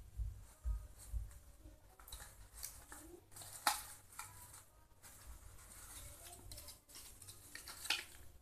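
Paper and ribbon rustling and crinkling as hands handle a folded-paper gift box and tie its ribbon bow, with sharp crinkles about a third of the way in and again near the end. Soft knocks against the surface come first.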